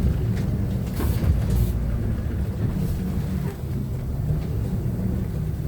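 Inside a natural-gas (CNG) Hyundai New Super Aero City city bus on the move: a steady low engine drone mixed with road noise, with a few short rattles about a second in.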